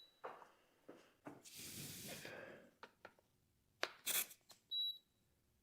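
Air hissing briefly from a tire valve stem as a pressure gauge is pressed on, followed by a second short hiss. Near the end comes a single short high electronic beep, typical of a digital tire pressure gauge taking a reading.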